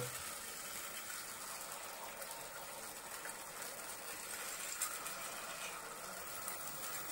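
Punugulu batter frying in oil in a multi-cavity paniyaram pan: a steady, faint sizzling hiss with light crackles.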